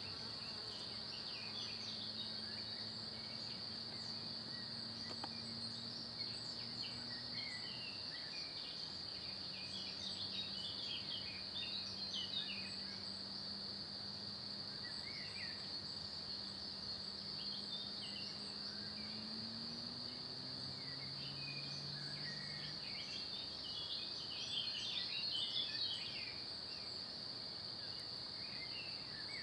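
Outdoor woodland ambience: a steady high-pitched whine with scattered short chirps, busiest about halfway through and again near the end. Under it runs a faint low hum that rises in pitch about twenty seconds in.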